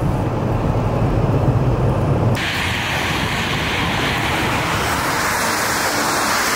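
Steady low rumble of an idling vehicle engine. About two seconds in it cuts suddenly to a steady hiss of wind and highway traffic as tractor-trailers move through heavy snow.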